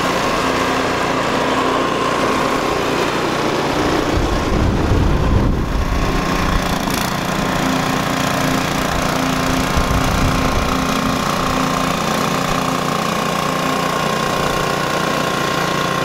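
Gas-engine two-stage snowblower running steadily under load as it clears deep snow. Deep gusts of wind buffet the microphone about four to six seconds in and again briefly around ten seconds.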